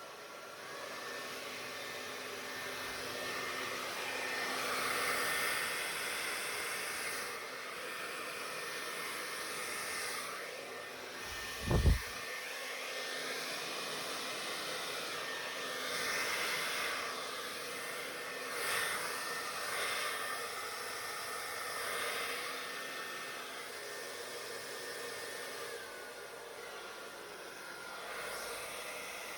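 Hairdryer running on its coldest setting, blowing steadily, its noise swelling and falling, with a faint high whine. A single loud thump about twelve seconds in.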